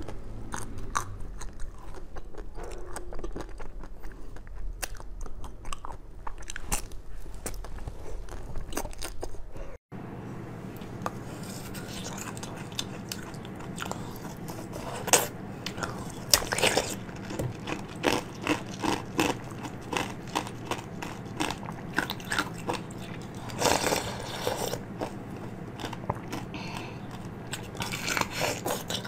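Close-miked biting and crunchy chewing of frozen sweets: first a black-coated ice cream bar, then, after a cut, a translucent bead-filled treat, with a few sharper, louder bites in the second half.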